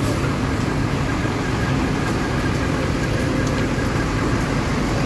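Diesel bus engine idling: a steady low engine sound with no change in pace.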